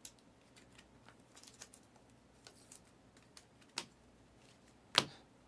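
Trading card packs and cards being handled: light scattered clicks and rustles, with two sharper clicks near the end, the louder about five seconds in.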